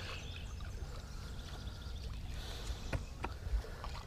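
Low, steady outdoor rumble aboard a small fishing boat, with two short knocks about three seconds in.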